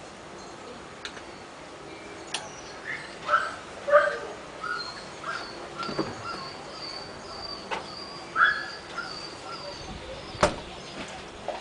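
Rottweiler barking repeatedly, a run of barks through the middle, with a small bird chirping steadily over it and a sharp knock near the end.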